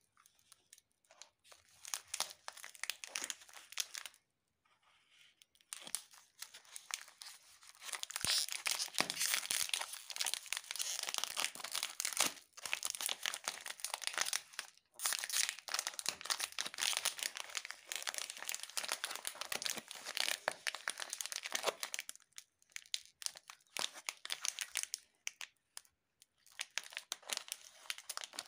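Crinkly plastic wrapper of a Britannia Treat Jim Jam biscuit pack crackling and being torn open as it is handled. The crackling is densest through the middle stretch, with short pauses about 4 seconds in and halfway through.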